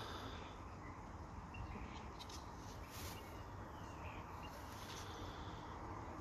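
Faint outdoor background: a steady low rumble with a few short bird chirps, and soft taps and rustles of a metal lock bracket being handled.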